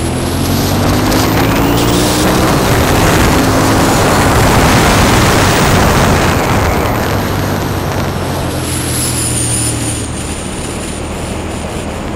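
Motorcycle engine accelerating with rising pitch under heavy wind rush on the helmet-mounted microphone. The rush peaks mid-way, then both ease off toward the end.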